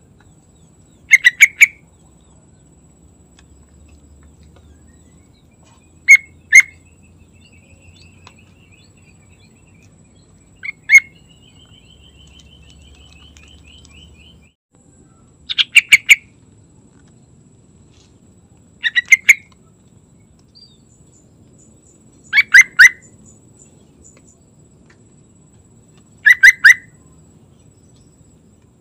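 Yellow-vented bulbul singing short, loud bursts of two to four quick bubbly notes, seven times, every three to five seconds.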